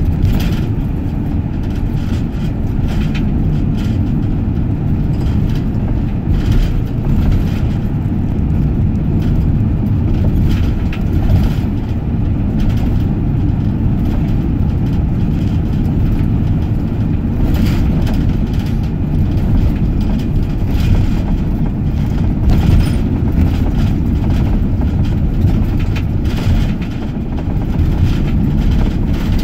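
Steady low rumble of a car driving at road speed, its engine and tyre noise heard from inside the cabin.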